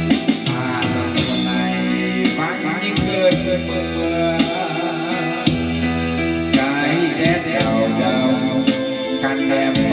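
A song with singing over guitar and a regular beat, played back through JBL 6102 MKII loudspeakers under test.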